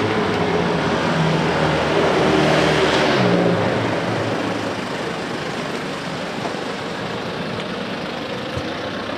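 A car driving past on the street. Its engine and tyres are loudest about three seconds in, the engine note dropping as it goes by, then fading into steady traffic noise.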